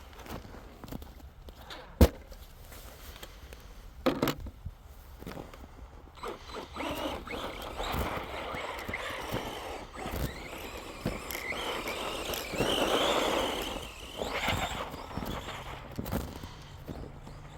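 Radio-controlled monster truck driving through snow: its motor whines up and down as the tyres churn and scrape through the snow, with a sharp knock about two seconds in and a smaller one about two seconds later.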